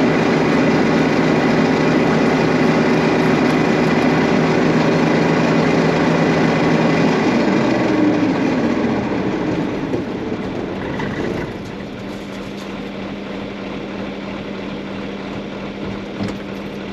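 John Deere 6620 combine harvester running loud and steady, then dropping in level about nine to eleven seconds in to a quieter, steady run with a low hum.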